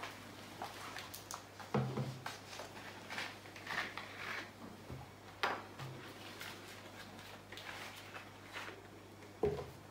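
Plastic paint bottles and a measuring cup being handled on a table: scattered light clicks and knocks, the loudest about two seconds in, midway and near the end, over a low steady hum.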